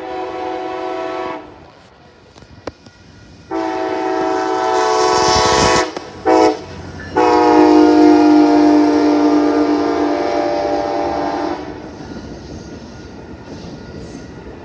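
Amtrak passenger train's horn sounding a chord of several notes at once in a long, long, short, long pattern, the signal for a crossing. The last blast is the longest and loudest and stops about three-quarters of the way through, leaving the rumble of the train rolling past.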